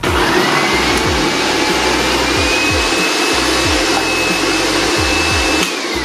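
Hamilton Beach Stack & Snap food processor's 450-watt motor starting up and shredding potato through the shredding disc. Its whine climbs in pitch over the first two seconds, holds steady, then falls as the motor winds down near the end.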